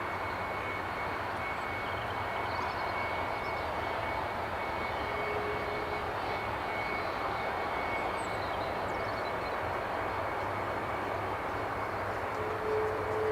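Boeing 757's left jet engine running steadily on its own, the right engine shut down after a bird strike, with a steady high whine over the engine noise. A short lower tone comes about five seconds in and again near the end.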